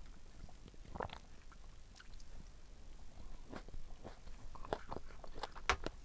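Close-up eating sounds: chewing and wet mouth clicks of someone eating fresh strawberries, in irregular short crackles.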